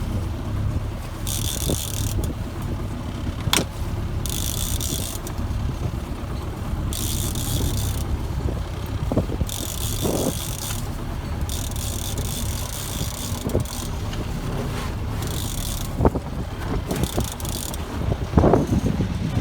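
Sailboat under way: a steady low drone with short bursts of water hiss every two to three seconds.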